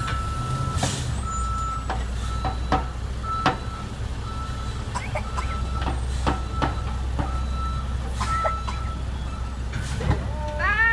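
Natural-gas garbage truck's backup alarm beeping steadily, a single repeated tone a bit under twice a second, over the low running of its engine, with a few scattered knocks.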